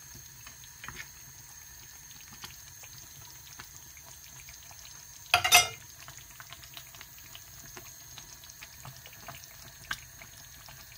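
Tomato pepper fish stew simmering in a pot, the sauce bubbling with many small pops. About halfway through there is one short, louder sound.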